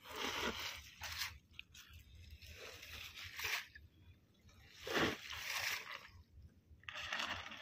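Wet dol net (bag net) being paid out over the side of a wooden fishing boat into the sea, its mesh rustling and splashing into the water in repeated bursts a second or two apart.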